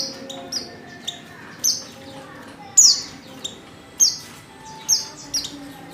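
Female white-eye (pleci) calling: short, sharp, high chirps that fall in pitch, about one a second. It is the female call used as a lure to set a male white-eye singing.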